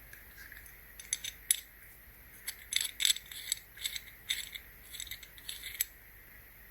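Small hard pieces of a paintless dent repair kit clicking and clinking as they are handled, in a quick, irregular run of light clicks that stops near the end.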